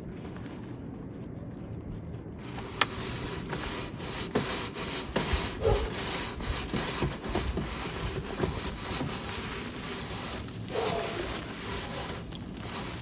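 A chimney brush scraping up and down inside the wood stove's stovepipe in irregular rasping strokes, knocking loose creosote. It gets louder about two seconds in.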